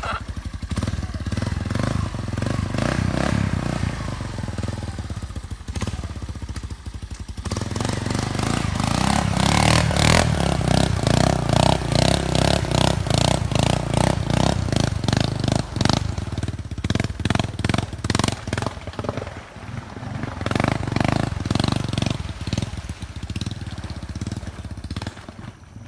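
Honda ATC 250SX three-wheeler's single-cylinder four-stroke engine revving hard under load as the machine pushes through deep water. The engine climbs to its loudest about a third of the way in, rises and falls with the throttle, and grows fainter near the end as the machine moves away.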